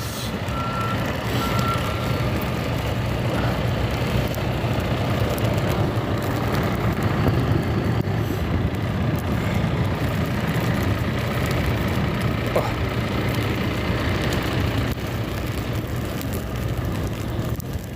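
Snow-removal truck engines running steadily close by, with a truck's reversing beeper sounding for about the first two seconds.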